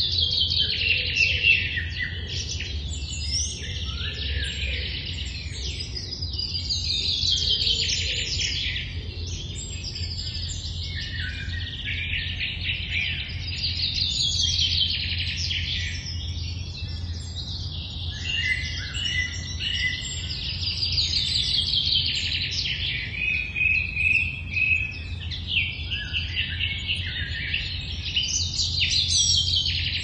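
Songbirds singing in an early-morning forest chorus. One bird repeats a fast trilled phrase that falls in pitch, roughly every three to four seconds, and other birds chirp between its phrases. A steady low rumble runs underneath.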